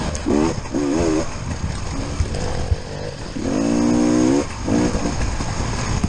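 Enduro dirt bike engine revving up and falling back as the throttle is worked, in short surges during the first second and a longer held burst about halfway through, over a rough, constant low rumble from the bike picked up by its onboard camera.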